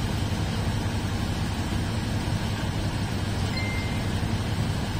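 Steady low hum of a diesel train standing at a station, heard from inside a passenger carriage, with a short faint high tone about three and a half seconds in.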